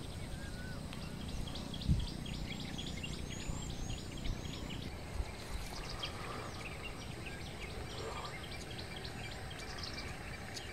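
Birds chirping and calling over a low steady background noise: many short chirps and a few sweeping whistles, with a single soft thump about two seconds in.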